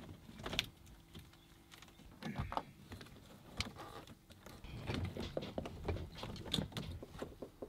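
Engine control-panel cables being fed by hand through a hole and along an overhead cable tray, rustling and scraping with irregular light clicks and knocks.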